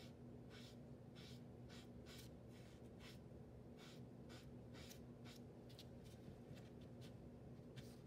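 Faint, quick rubbing strokes, about two a second, of a damp magic eraser sponge scrubbing across watercolour paper, lifting paint to put in a highlight. A steady low electrical hum lies under it.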